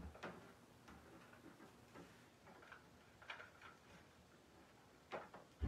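Quiet, scattered light clicks and rustles of artificial floral stems being pushed and worked into a moss wreath base, with a sharper knock at the very end.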